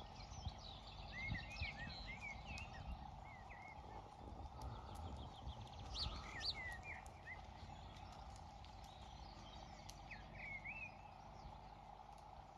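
Small songbirds chirping in quick rising-and-falling phrases, coming in clusters about a second in, around six seconds and near ten seconds, over a faint low outdoor rumble.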